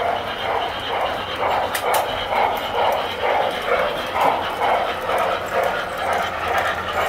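Tinplate model train running on the layout, with a steady rhythmic pulse about two to three times a second.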